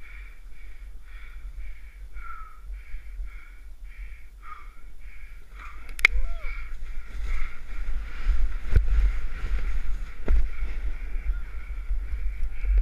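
Wind buffeting a body-mounted camera's microphone as a rider descends through deep powder snow among trees, with a light rhythmic rattle in the first half. A sharp snap comes about six seconds in, then two heavy thumps near the end.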